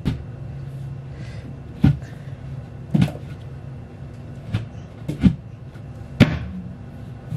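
Irregular knocks and clacks of IKEA Alex drawer-unit panels and parts being handled and fitted together during flat-pack assembly, about seven sharp knocks over a steady low hum.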